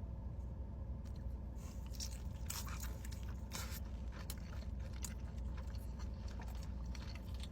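Close-up eating sounds: bites and crunchy chewing of fried chicken wings, with crisp crackling crunches starting about a second and a half in.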